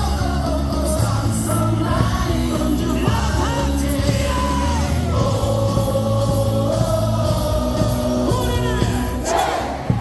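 Stadium sound system playing a baseball cheer song with a heavy beat, a huge crowd singing along in unison and yelling.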